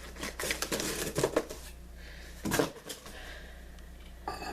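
Cardboard shipping box and packing being handled: a quick run of clicks and rustles, a louder knock about two and a half seconds in, and another short rattle near the end.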